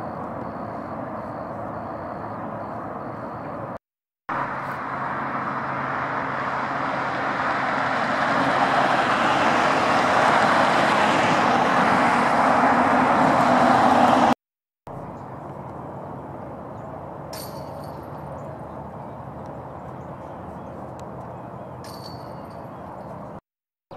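Steady background hum of motor traffic, twice cut off by a brief dropout. Through the middle stretch an engine grows steadily louder as it draws nearer.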